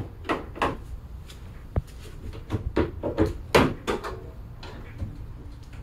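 A string of short clacks and knocks from the Jeep Wrangler JK's hood latches being unhooked and the hood being released and raised.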